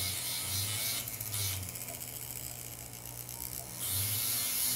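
Flex-shaft rotary handpiece running steadily with a low motor hum, its abrasive disc grinding against the metal rim of a bezel setting to blend away the sharp edge.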